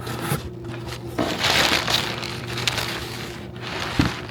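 Packing material being torn and crumpled as a box is unpacked: a stretch of rustling and crinkling with a few sharp cracks, over a steady low hum.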